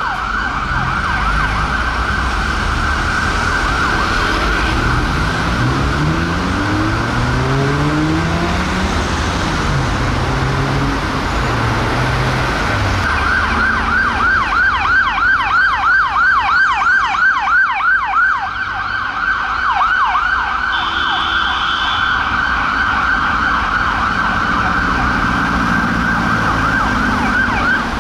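Ambulance siren on a fast yelp, sweeping up and down several times a second. In the first half a vehicle engine pulls away, rising in pitch through its gears. About 13 seconds in, a louder, clearer yelp starts suddenly.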